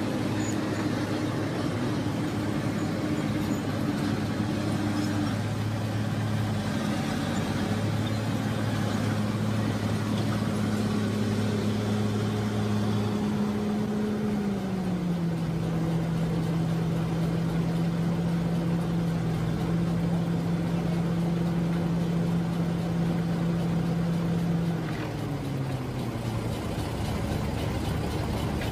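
A loaded logging truck's engine running steadily under load as the truck crawls along a dirt track. Its pitch steps down about halfway through and drops again near the end, where it gets a little quieter.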